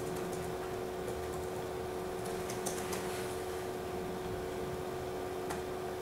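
Room tone with a steady electrical hum, broken by a few faint clicks from the laptop being operated at the lectern.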